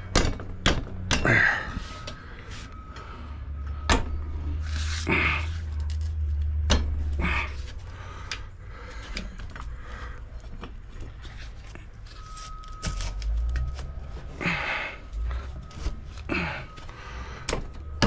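Scattered metal clicks, clinks and knocks from hands working a motorcycle's rear wheel, axle and chain into place.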